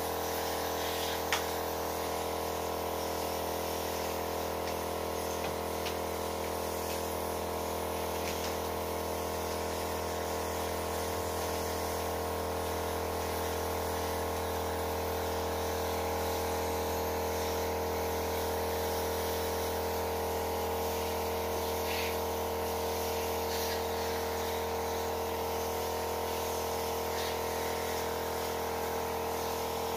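Small electric pump of an air-conditioner cleaning kit running with a steady hum, forcing water through a spray wand onto the indoor unit's coil with a faint hiss.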